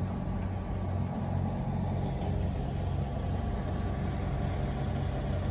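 Cat 980M wheel loader's diesel engine running steadily with an even low drone.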